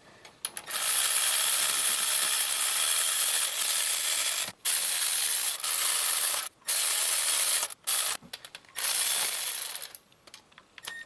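Cordless electric ratchet spinning cylinder head bolts down snug before torquing, in about five runs: a long one of some four seconds, then shorter ones of a second or two with short pauses between.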